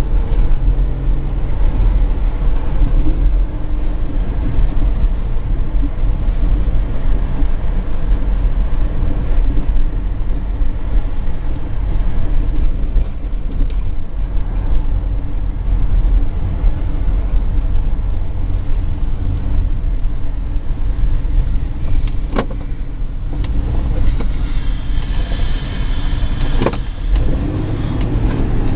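Car engine and tyre/road rumble heard from inside the cabin while driving, with a steady low drone throughout. Two short knocks come late on.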